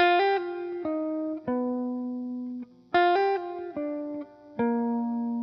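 Background music: a slow melody of single plucked notes, each ringing out and fading. The same phrase begins again about three seconds in.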